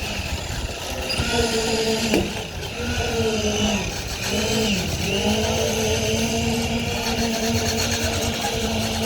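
Heavy construction machinery engine running steadily under load, its pitch dipping briefly twice in the first half and then holding, over a low rumble.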